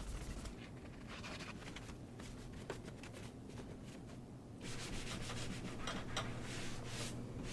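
Rubbing and wiping strokes across a surface, as in cleaning. A little past halfway the rubbing gets louder and a steady low hum comes in beneath it.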